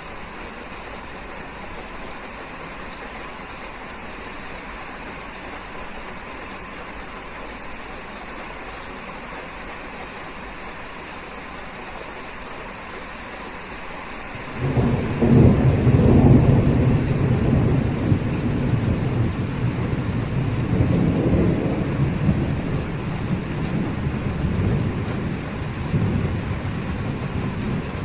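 Steady rain falling, then about halfway through a loud rumble of thunder breaks in suddenly and rolls on over the rain, slowly easing off.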